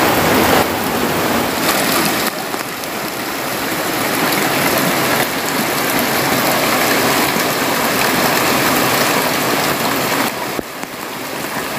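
Heavy rain pouring down steadily on a hut's corrugated metal roof, with runoff spilling off the roof edge.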